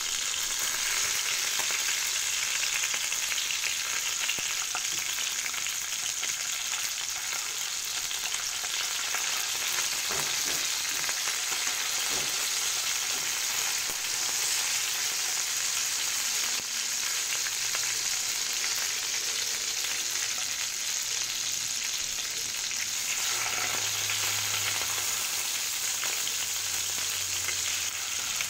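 Mackerel pieces sizzling steadily as they fry in oil with garlic in a frying pan.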